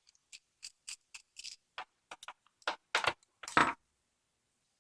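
Screwdriver working a Loctite-held screw out of an American 5200 padlock: a run of small metallic clicks and scrapes, growing louder, with two longer grinding scrapes about three and three and a half seconds in.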